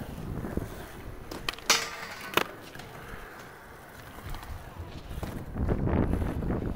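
Skateboard wheels rolling on smooth skatepark concrete, with three sharp board clacks about one and a half to two and a half seconds in, the middle one loudest. The wheel rumble grows louder near the end.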